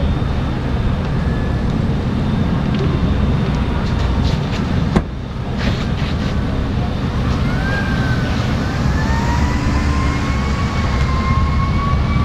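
Fire engine's engine running steadily at a low rumble while it supplies a hose line. From about seven seconds in, a siren wails slowly up and down over it; a single sharp click comes about five seconds in.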